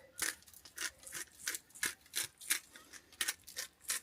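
Pepper mill being twisted to grind pepper, a quick series of short rasping grinds at about three a second.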